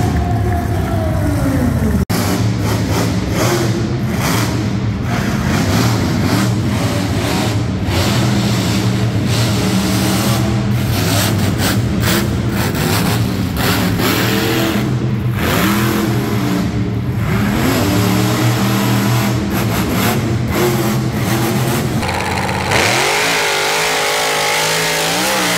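Monster truck engine revving hard and repeatedly, its pitch climbing and falling with each throttle stab. The sound changes abruptly about two seconds in and again near the end.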